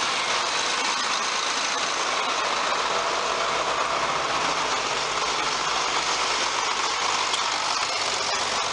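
John Deere 4450 tractor's six-cylinder diesel engine idling steadily, with the PTO not yet engaged.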